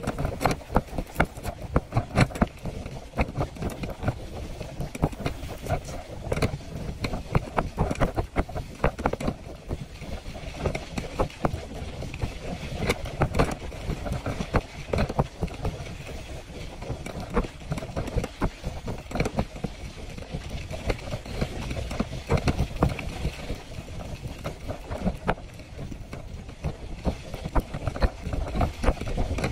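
Bicycle rolling over a bumpy dirt road, its wire-mesh front basket rattling with frequent irregular clicks and knocks over a low rumble.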